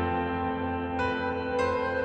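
Background music: soft, slow ambient music with long held notes, new notes sounding about a second in and again just after.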